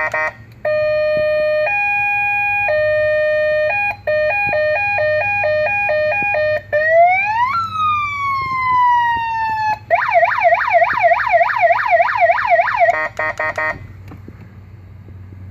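Aftermarket 12-volt electronic police siren cycling through its tones: a slow two-tone hi-lo, then a faster two-tone, one long wail rising and falling, then a rapid yelp of about four sweeps a second, and a short run of quick beeps before it stops near the end.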